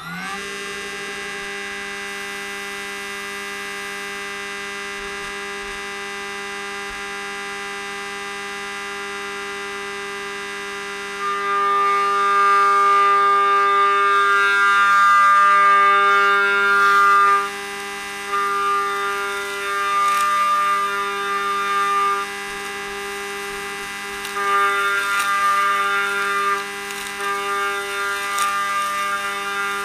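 Machine-tool spindle running with a steady multi-tone whine just after spinning up. From about eleven seconds in, a louder, higher cutting tone comes and goes in stretches of a few seconds as the tool works the metal of a lower control arm.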